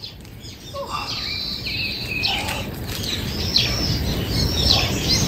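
Birds chirping and calling in a string of short whistled notes, starting about a second in, over a steady hiss of rain.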